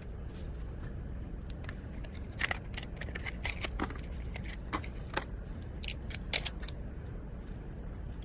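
A quick run of small, sharp clicks and taps from hand tools working on an iPhone 11 Pro Max's parts, about a dozen in a few seconds starting near the middle, over a steady low hum.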